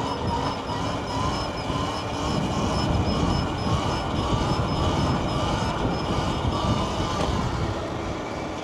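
Wind rushing over the microphone while riding a Surron electric dirt bike, with a thin electric motor whine that rises and dips with speed.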